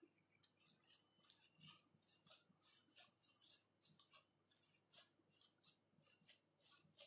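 Faint, scratchy rustle of icing sugar being shaken through a mesh sieve, in short regular strokes about three times a second.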